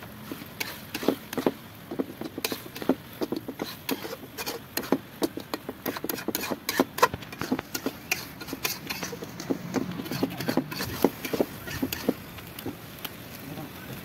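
Metal spatula scraping and knocking against an iron kadai while stirring a thick masala, in quick irregular strokes.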